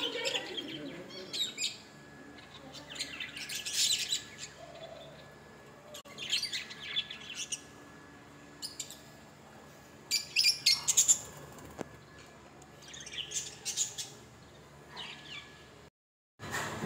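Caged birds, budgerigars among them, chirping and chattering in short high bursts every few seconds over a low background hum. The sound cuts out briefly near the end.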